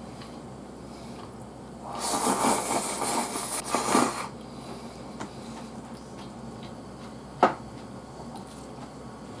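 Loud slurping of mapo glass noodles from a bowl held to the mouth, lasting about two seconds, followed by quiet chewing. Near the end comes a single sharp click.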